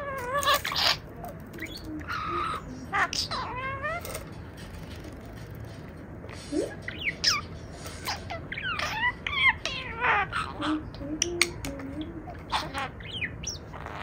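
Budgerigar chattering and warbling at its reflection in a mirror: an irregular run of quick chirps, squeaks and rising and falling whistled notes with short pauses between them.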